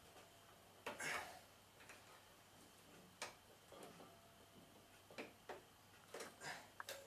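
Faint, irregular clicks and rustles of plastic clips, hoses and wiring being handled and unclipped inside a washing machine's frame.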